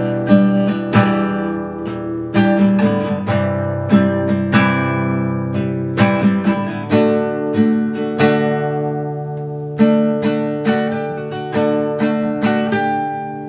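Acoustic guitar playing an instrumental passage of plucked and strummed chords that ring on between strokes, fading near the end.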